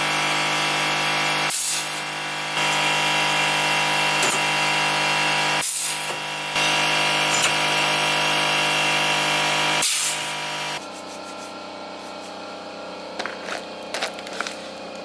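Power saw running steadily while cutting wood, easing off briefly twice. It stops about eleven seconds in, leaving only faint ticks and handling sounds.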